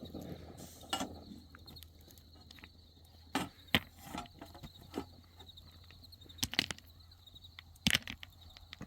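Irregular sharp clicks and knocks, a few much louder than the rest, over a faint steady hum.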